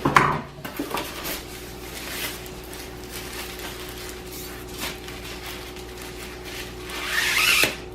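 Unboxing handling noises from blender parts and their packaging: a sharp clatter at the start, a few light knocks, and a loud rustling burst near the end, over a steady faint hum.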